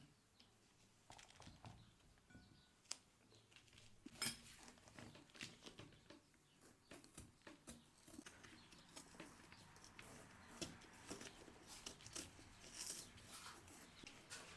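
Quiet kitchen handling: scattered soft clicks, taps and light rustles as peppers are cleaned out by hand, with two sharper ticks about three and four seconds in.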